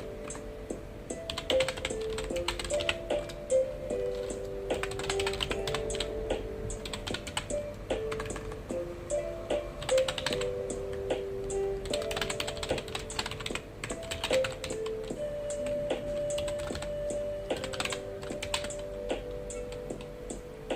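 Computer keyboard being typed on in bursts of quick key clicks, with short pauses between them, over soft background music of slow held notes.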